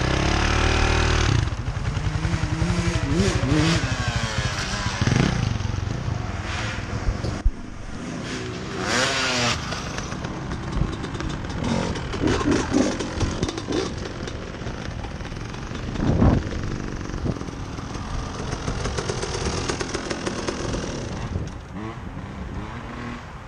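Off-road engines revving up and down over and over as a four-wheeler and a dirt bike ride a dirt track, the throttle opening and closing every few seconds.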